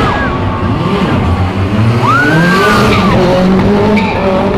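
A rally car's engine revving hard, its pitch climbing and dropping with gear changes and throttle, with a sharp rise and fall about two seconds in, over the hiss of tyres skidding on the tarmac.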